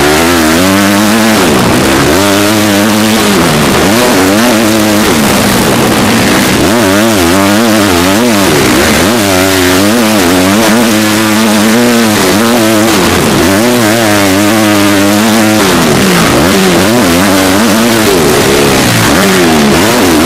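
Motocross bike engine heard from an on-bike camera, its pitch climbing and dropping over and over as the rider opens and closes the throttle around the track. A steady rushing noise runs under it.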